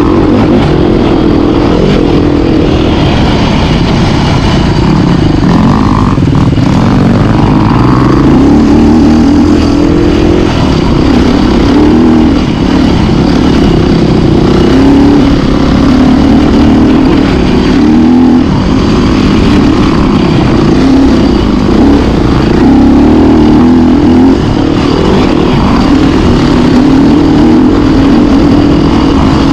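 Dirt bike engine running loud and steady while being ridden on a trail, its pitch wavering up and down with the throttle.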